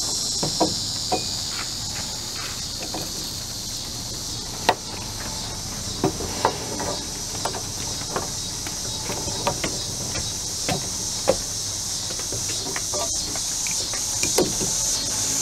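Irregular sharp metal knocks and clanks as a hammer strikes a metal piece held in a bench vise, the loudest about a third of the way in and again past the middle. Insects chirr steadily in a high band underneath.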